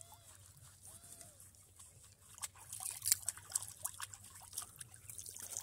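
Water splashing and dripping as hands scoop it over a wet dog standing in shallow water. It is quiet at first, then a run of irregular splashes starts about two seconds in.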